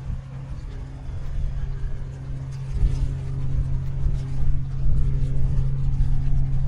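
A large lake freighter's diesel engines droning low and steady as the ship passes close, growing louder about three seconds in, with wind buffeting the microphone.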